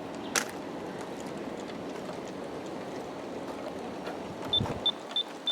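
G-scale model coal train rolling along the track: a steady rumble of many hopper wheels on the rails, with a single sharp click about half a second in. Near the end, a run of short, high electronic beeps starts, about three a second, typical of the operator's handheld throttle being stepped up to increase speed.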